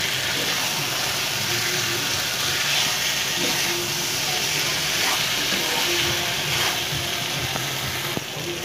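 Fried eggplant and potato pieces sizzling steadily in masala in a nonstick wok, stirred and turned over with a slotted spatula that scrapes now and then against the pan.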